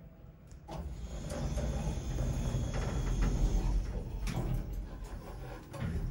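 Otis elevator's automatic sliding doors closing: a click about a second in, a steady sliding rumble, and a clunk as they shut about four seconds in, with another knock near the end.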